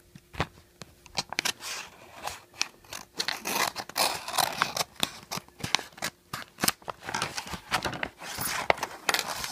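A manila envelope being slit open along its folded edge: paper scraping and tearing in a run of short rasps and sharp clicks, with the envelope rustling as it is handled.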